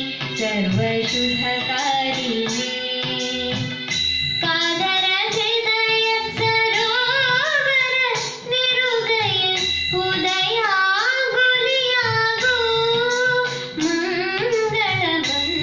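A girl singing a devotional song into a handheld microphone, her voice gliding through ornamented phrases over instrumental accompaniment with a steady beat.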